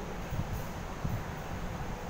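Steady low rumbling background noise with irregular soft thumps and no clear single source.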